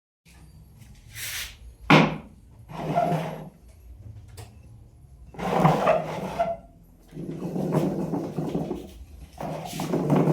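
Wooden cable roller being turned in a series of short bursts of rumbling and creaking, with a sharp wooden knock about two seconds in.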